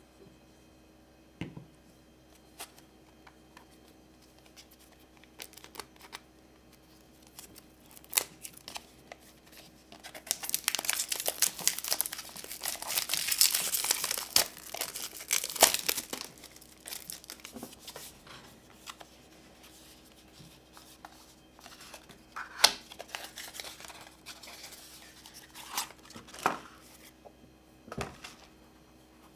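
Clear plastic shrink-wrap being torn and peeled off a small cardboard filter box: a dense crinkling and tearing that runs for several seconds in the middle. Before and after it come scattered light clicks and taps as the box and its plastic case are handled.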